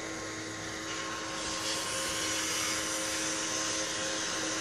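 Small electric bubble machine's fan motor running with a steady hum and whine; a brighter hiss comes in about a second and a half in.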